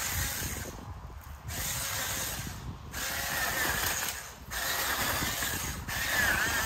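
Battery-powered 24-volt mini chainsaw run in short bursts, about five, with brief pauses between, as its chain cuts through thin maple shoots. The motor's whine wavers in pitch as the chain bites.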